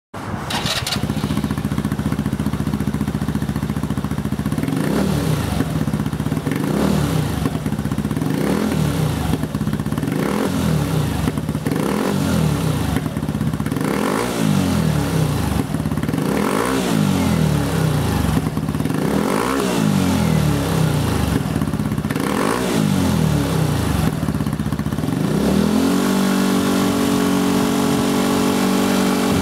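PGO Tigra scooter's single-cylinder four-stroke engine breathing through an OUTEX aftermarket slip-on muffler, rated at 85 dB. It idles at first, then is blipped about ten times in quick throttle revs, and near the end is held steady at raised revs.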